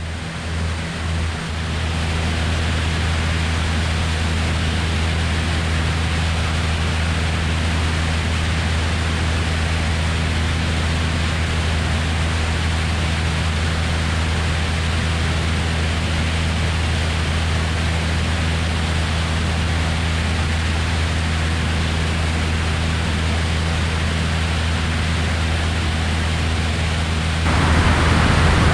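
Cessna 172's four-cylinder engine and propeller droning steadily in flight, under heavy wind rush over a camera mounted outside on top of the aircraft. The sound builds over the first two seconds, and the wind hiss grows louder about a second before the end.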